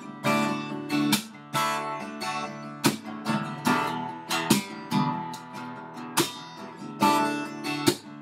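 Acoustic guitar strummed solo in a steady rhythm, chords ringing between sharp, accented strokes that come every second or so.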